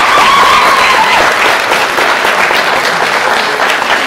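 Audience applauding in a theatre, with a couple of drawn-out cheers from the crowd in the first second.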